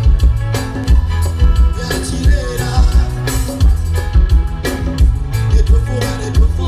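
Music played through a PA system at a sound check, with a heavy, pulsing bass beat and singing.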